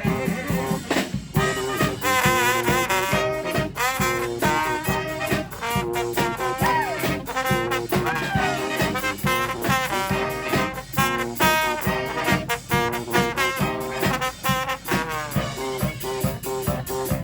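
Street brass band playing an upbeat instrumental tune live: several horns, trombone among them, over a steady drum beat.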